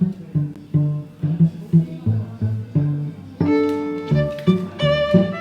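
Background music: low plucked string notes in a steady rhythm, about three a second, joined about three and a half seconds in by a higher sustained string melody.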